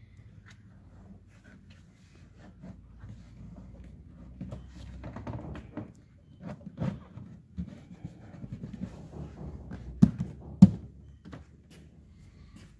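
A molded trunk panel being handled and lifted out of a car's trunk: scraping and rubbing, then two sharp knocks about ten seconds in, half a second apart.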